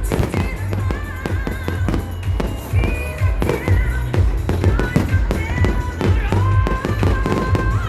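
Background music with a heavy bass beat and a melody, with fireworks going off over it in many sharp pops and crackles.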